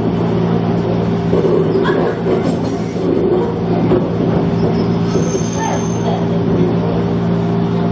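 Electric train running, with a steady low motor hum and the rumble of wheels on track, and two brief high-pitched wheel squeals, about two and a half seconds in and again about five seconds in.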